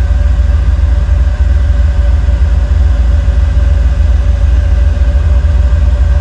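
Off-road rig's engine idling close by: a loud, steady low rumble with a faint steady hum above it.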